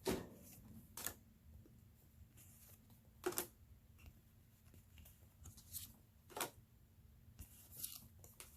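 Board game cards and cardboard pieces being handled on a table: a handful of light, separate taps and rustles about a second or two apart over a faint room hum.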